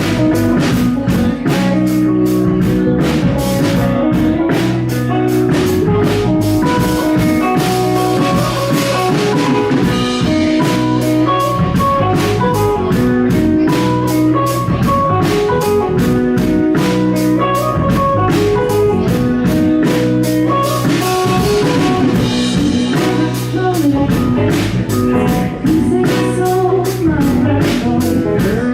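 Live band playing a song in a pub, with a drum kit keeping a steady beat under guitar.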